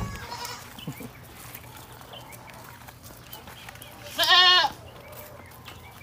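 A goat bleats once, a single wavering call about half a second long, a little past the middle.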